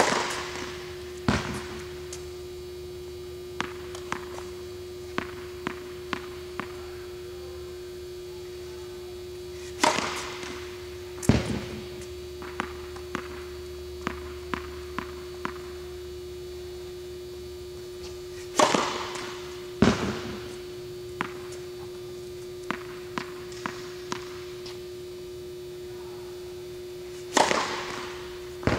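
Tennis serves on an indoor court, four of them about nine seconds apart. Each is a racket strike on the ball, followed about a second and a half later by a loud thump. Between serves the ball is bounced on the court several times in light taps, and a steady hum runs underneath.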